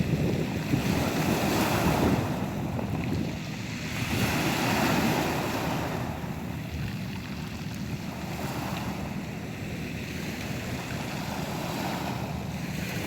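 Sea waves washing ashore, the noise swelling and easing every few seconds, with wind buffeting the microphone.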